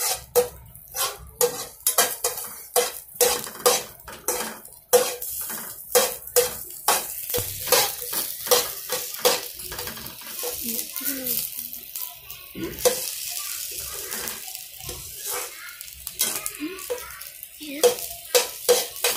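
Spoon stirring chopped okra frying in oil in a pan, clinking and scraping against the pan about twice a second, with the oil sizzling underneath. The strikes thin out in the middle, leaving mostly the sizzle, and pick up again near the end.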